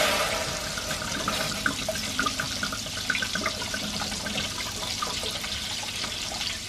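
Red wine poured from a glass bottle into a hot, empty stainless saucepan: a loud hiss as it hits the hot metal, dying away over the first second, then a steady pour. A light crackle of butter and oil in a frying pan runs underneath.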